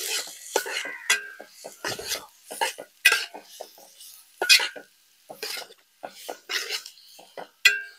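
Steel spoon scraping and clinking against an aluminium pot in a series of irregular strokes. It is stirring sliced onions being sautéed in hot coconut oil.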